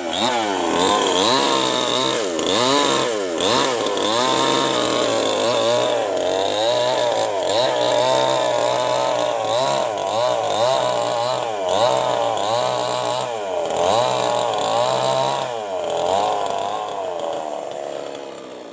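Maestro CS6500L chainsaw ripping lengthwise through acacia wood. Its engine pitch dips and rises again and again as the chain bites under load, and it fades out near the end.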